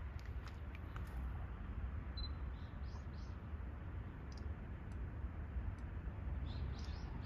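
Low, steady outdoor rumble, like wind on the microphone, with a few short high chirps: a pair about two to three seconds in and a few more near the end.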